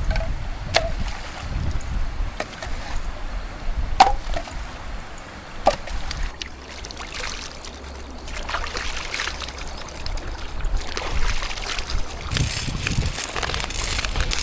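A few sharp knocks spaced several seconds apart, the second one loudest, over the steady rush of a forest stream. Then several seconds of rustling and crackling handling noise.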